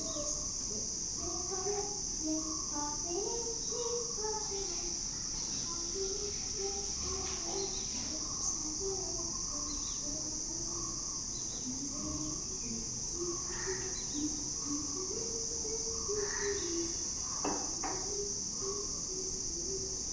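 Steady, unbroken high-pitched insect drone, a cricket or cicada chorus, with faint distant voices underneath and a few brief faint chirps.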